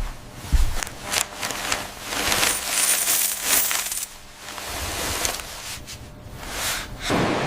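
Crisp crackling and clicking of crunchy food being bitten and chewed in close-up ASMR, in uneven bursts that swell and fade, over a faint low hum.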